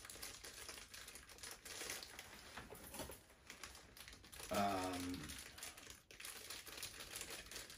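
Wrapper of a Funko Mystery Minis blind box crinkling as it is handled and torn open, with a brief hum from the man about halfway through.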